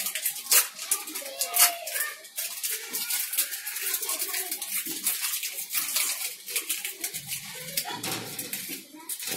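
Crinkling and rustling of a Cadbury Dairy Milk chocolate bar's wrapper as it is peeled open and the bar is broken into pieces, a rapid run of crackles.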